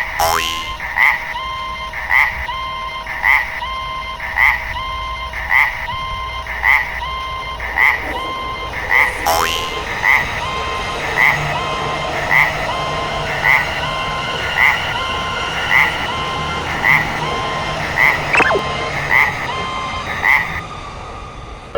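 Japanese level-crossing warning bell ringing steadily at about one ding a second, stopping shortly before the end. A low rumble from a passing train joins in the second half.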